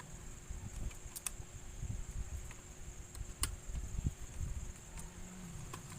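Quiet handling noise from a laptop being disassembled, with a few sharp small clicks of parts and tools. Behind it runs a steady high-pitched chirring of crickets.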